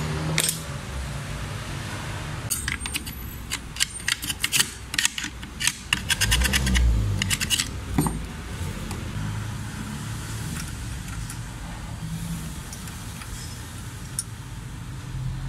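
Metal hand tools and clutch master cylinder parts clicking and rattling against each other as the cylinder is reassembled and refitted, in a dense run of sharp clicks from about two and a half to eight seconds in. After that only a low steady hum remains.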